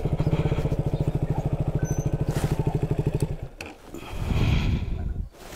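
Motorcycle engine idling with a rapid, even pulse, then switched off about three and a half seconds in, the running stopping abruptly. A brief rustle follows.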